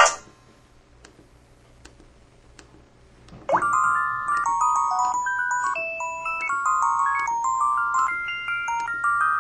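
LG-SD350 mobile phone's built-in ringtone melody playing through the phone's speaker. One tune cuts off right at the start; after about three and a half seconds of quiet, the next one begins with a quick upward sweep, then a bright chiming tune of quick notes.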